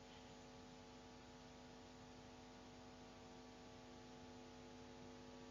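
Near silence: a faint, steady hum made of a few held tones, with nothing else happening.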